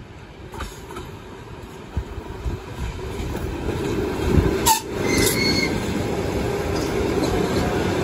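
ED4M electric multiple unit approaching and passing close by, its wheels rumbling on the rails and growing steadily louder. About halfway through there is a sharp knock, followed by a brief high wheel squeal.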